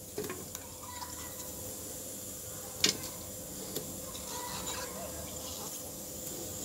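Cut lemon pieces dropped into a blender jar, then faint room hiss with one sharp click about three seconds in.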